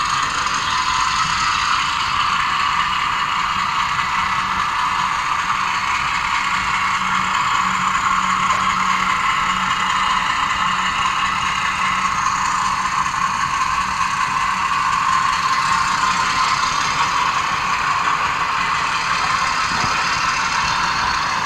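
HO-scale model train running on the layout's track, a steady mechanical whirring of the locomotive's motor and gears and its wheels on the rails.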